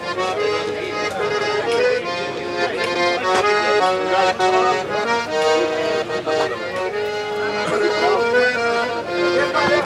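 Accordion playing a tune, a run of short held notes that change pitch quickly.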